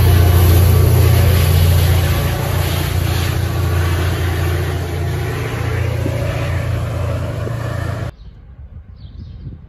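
Diesel locomotive of a commuter train running under power as it pulls away, a loud steady low engine drone with the rumble of the train, easing off slightly. About eight seconds in it cuts off suddenly, leaving faint bird chirps.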